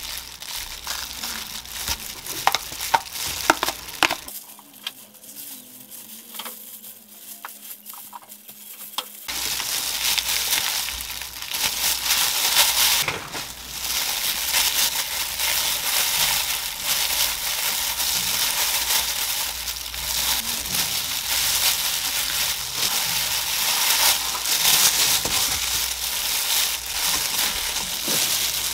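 Disposable plastic gloves crinkling and dry gim seaweed sheets crackling as gimbap is assembled by hand on a wooden board. A few sharp crackles come in the first few seconds, then a quieter spell, then steady crackling and rustling for the rest.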